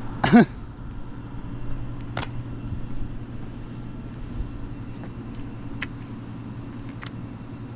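Steady low hum of a vehicle engine idling, with road traffic, broken by one short vocal sound about half a second in and a few sharp clicks later on.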